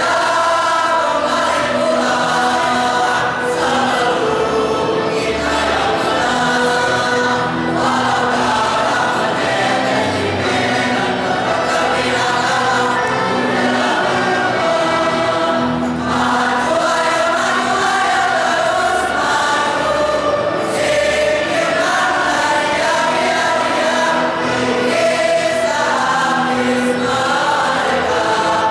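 A choir of boys and young men singing together into stage microphones, one continuous sung passage.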